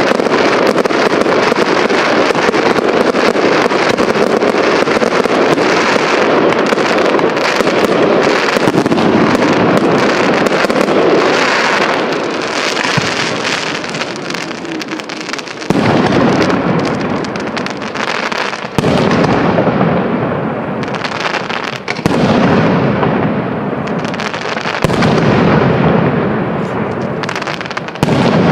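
Aerial firework shells bursting in a display: a dense, continuous barrage of bangs and crackling for about the first half, then single loud shell bursts a few seconds apart, each dying away over a few seconds.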